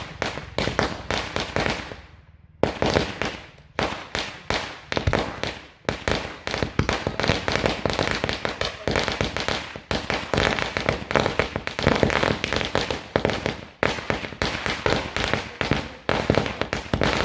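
Diwali firecrackers going off in quick, irregular succession, several sharp bangs a second, with a short pause about two seconds in.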